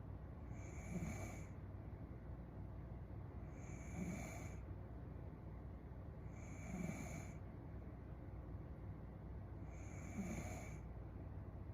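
A woman snoring in her sleep, four snores about three seconds apart.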